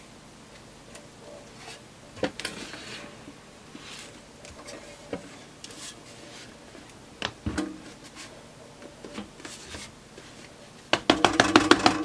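The sheet-metal case of a Keithley 150B microvolt ammeter being handled, tipped and turned over, with scattered knocks and clicks. It is being shaken to find a loose part thought to be moving around inside. A quick rattle of about eight knocks comes near the end.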